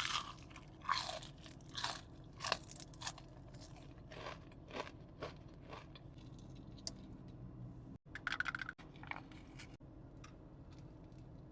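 Close-miked eating: a crunchy bite, then crisp chewing at about two crunches a second that gradually fades, with another short burst of rapid crunching about eight seconds in.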